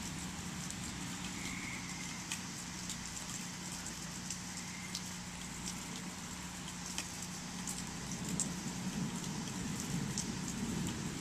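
Steady rain falling, with scattered sharp drips and a faint steady hum beneath; a low rumble of thunder grows near the end.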